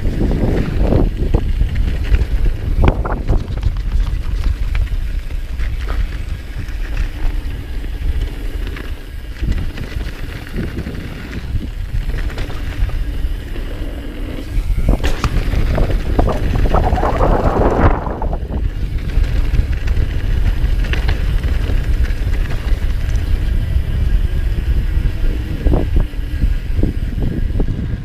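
Downhill mountain bike ridden fast down a dirt trail: wind rushing over the camera microphone, with tyre noise and the knocks and rattles of the bike over bumps.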